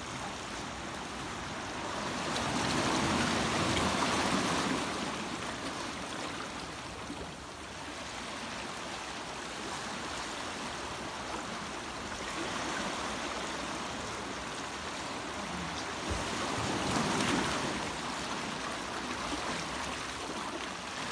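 Dry leaf litter and twigs rustling as a hand digs around and lifts clumps of coral mushroom on the forest floor. Under it runs a steady rushing noise that swells louder twice, with a soft low thump about sixteen seconds in.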